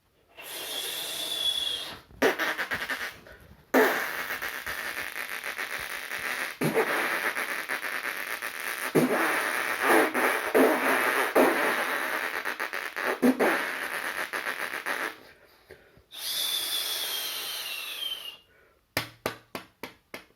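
A mimicry artist imitating a fireworks display with his mouth. A whistle, then bangs and a long crackling spell with louder pops scattered through it, then a second whistle falling in pitch, and a quick run of pops near the end.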